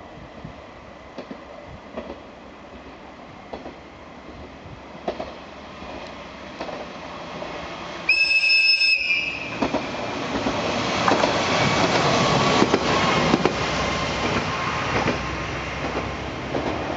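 Nagara Railway Nagara 300 series diesel railcar approaching and sounding one high-pitched horn blast of about a second roughly halfway through, the warning given at a whistle sign before an unguarded level crossing. Right after the horn it passes close, its engine and wheels on the rails loudest for a few seconds, then fading.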